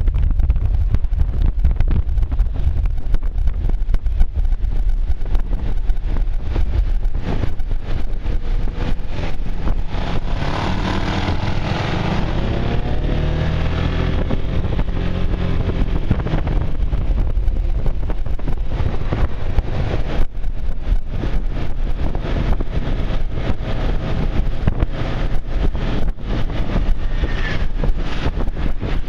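Wind buffeting the microphone on a moving motor scooter, with engine and road noise beneath. Between about 10 and 16 seconds in, a pitched engine note swells and bends in pitch before fading back into the wind.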